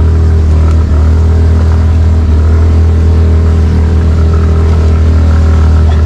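Suzuki Skydrive Crossover scooter's 113 cc single-cylinder engine running steadily under load as it climbs a steep dirt trail at low speed.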